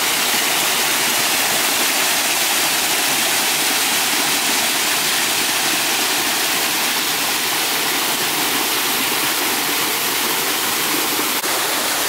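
Small waterfall falling over rock ledges and splashing onto the rocks below: a steady rush of falling water.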